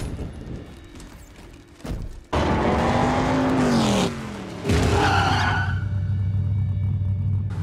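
Muscle car sliding through a turn: about two seconds in its engine and tyres break out loud, with a squeal that bends up and down in pitch. From about five seconds in, a deep, steady engine rumble as the car powers away.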